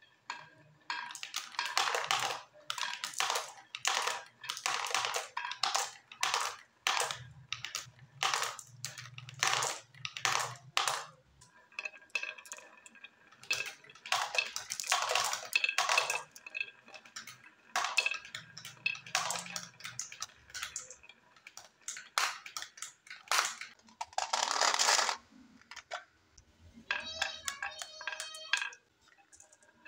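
Glass marbles rolling and clacking down a wooden marble-run track with carved S-curves and through plastic funnel chutes, a steady stream of quick knocks and clicks with a low rolling sound along the wood at times. Near the end comes a rapid run of ringing glassy clinks as marbles are handled and set on the wooden track.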